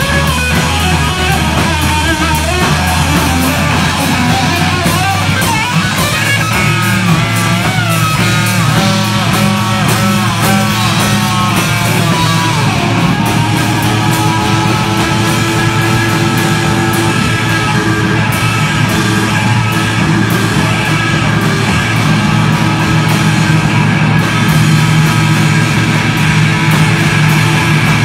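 Live hard rock band playing loud: distorted electric guitars over drums. A lead line wavers up and down in the first half, then gives way to long held notes.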